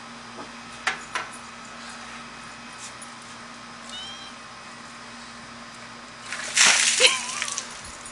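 A red plastic bowl of ice water dumped over a person: a loud splash about six and a half seconds in, lasting about a second, followed at once by a short high yelp at the cold. Two short knocks about a second in.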